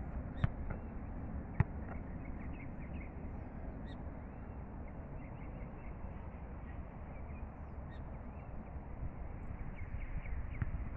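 Two sharp thumps of a football being kicked, about half a second and a second and a half in, over a steady low rumble of wind on the microphone. Faint bird calls come through.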